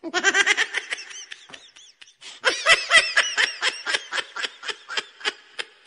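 A child's high-pitched voice lets out a drawn-out cry, then from about two and a half seconds in a run of short, laugh-like 'ha-ha-ha' cries at about four a second.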